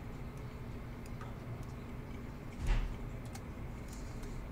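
Scattered faint clicks of a computer mouse and keyboard over a low steady hum, with one brief louder muffled noise a little past halfway through.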